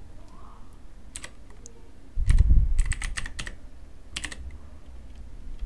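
Typing on a computer keyboard: a few separate keystrokes, then a quick run of them, with one more near the end. A dull low thump sounds under the run of keys about two seconds in.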